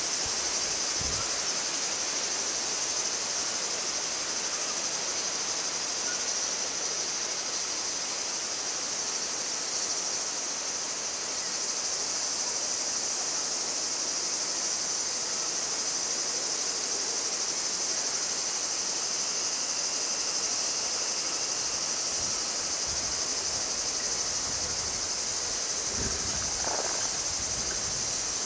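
A steady, high-pitched insect chorus: a dense, unbroken buzz.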